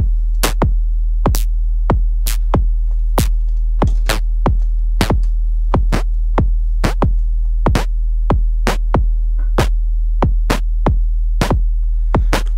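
Sequenced analog modular-synth percussion: a Schlappi Engineering Angle Grinder kick drum and an FM hit, the Angle Grinder frequency-modulated by a Happy Nerding HmVCO, repeating in an uneven pattern of about two sharp hits a second. The hits have a quickly falling pitch and sit over a steady low drone.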